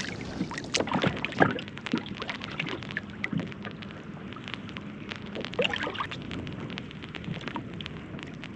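Water slapping and lapping against a kayak hull on a choppy sea, with many short clicks and rustles from handling fishing line and gear.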